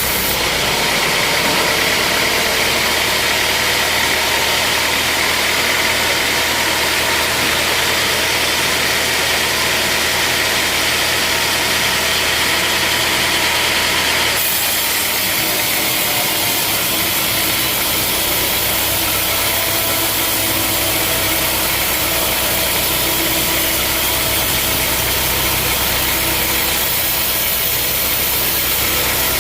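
Sawmill machinery running steadily: a motor drone with a dense hiss over it. The sound changes abruptly about halfway through, losing some of its high hiss.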